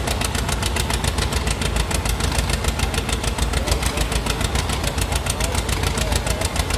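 John Deere 720 diesel's two-cylinder engine working under heavy load as it pulls a sled, its exhaust beating in a steady, even rhythm of about nine pops a second.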